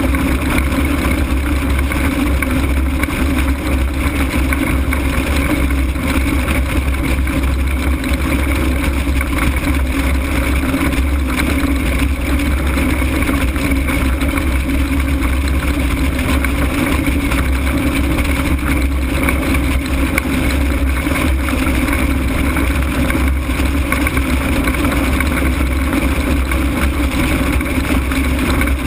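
Steady wind rush and low buffeting on an open ultralight gliding with its engine shut off and its propeller stopped. The airflow is the only sound, loud and unbroken.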